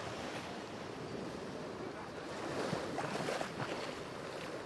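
Beach ambience: a steady rush of surf and wind on the microphone, with faint voices coming through briefly about halfway.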